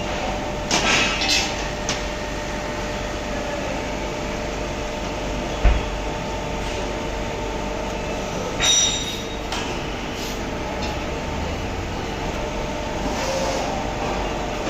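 CNC press brake running with a steady machine hum. Sheet metal clanks several times, with a ringing metallic clank about nine seconds in and a single low thump near the middle.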